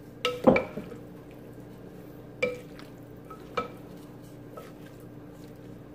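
Wooden spoon stirring shrimp and diced vegetables in a stoneware slow-cooker crock. The spoon knocks against the crock a few times, each knock ringing briefly; the loudest comes about half a second in, with smaller ones at about two and a half and three and a half seconds.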